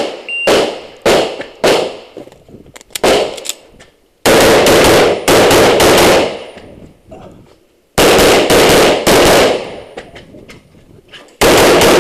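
Practical-shooting pistol with a red-dot sight firing: several single shots about half a second apart, then fast strings of shots at about four, eight and eleven and a half seconds in, each shot trailing off in echo.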